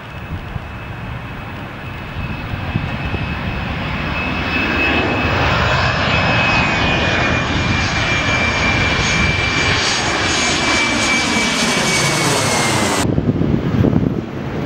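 Boeing 737-400's CFM56 turbofan engines passing low overhead on final approach: a high fan whine that grows louder and drops slightly in pitch as the jet goes over, above a rushing roar with a sweeping, phasing quality. The sound cuts off abruptly near the end, leaving a lower rumble.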